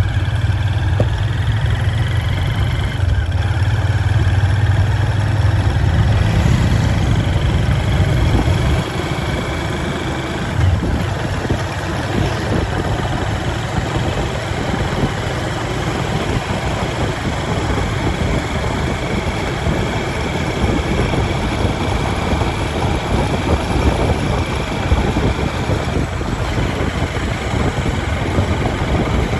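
Engine of a small road vehicle running steadily while riding along, with road and wind noise; the low engine note drops back about nine seconds in.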